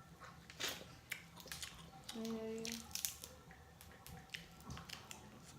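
Close-up eating sounds of a seafood boil: chewing, wet smacking and crunching, with scattered sharp clicks. A short hummed 'mm' sounds about two seconds in.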